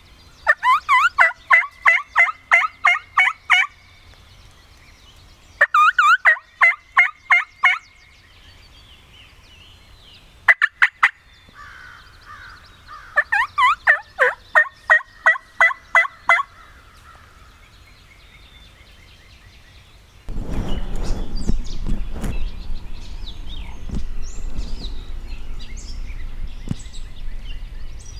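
Four runs of turkey yelps, loud and close: quick, evenly spaced two-note calls, about three a second, the longest run about three seconds. Near the end a steady rushing noise sets in, with faint small-bird chirps over it.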